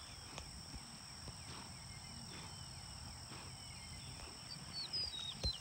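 Quiet outdoor ambience: wind buffeting the microphone, with small birds chirping now and then, a brief flurry of chirps near the end and a single thump just before it ends.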